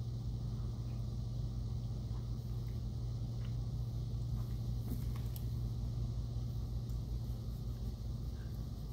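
Steady low hum with a faint rumble, and a few faint ticks about halfway through.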